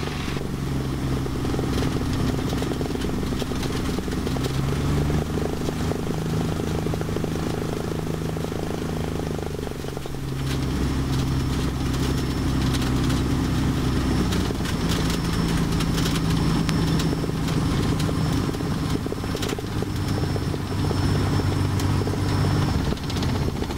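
Cessna L-19 Bird Dog's six-cylinder Continental O-470 engine and propeller running at low taxi power. The engine note steps up in pitch a few times and dips briefly about ten seconds in.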